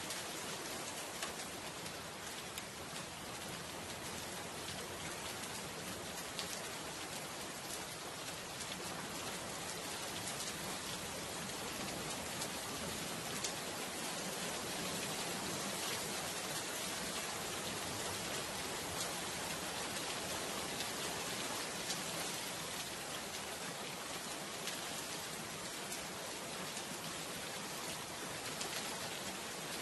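Steady rainfall: an even hiss of rain with faint scattered ticks of individual drops.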